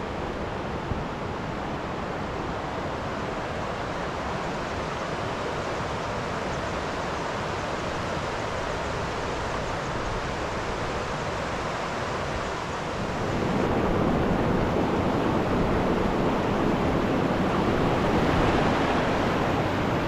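Mountain river rushing over its bed, a steady noise that grows louder about 13 seconds in.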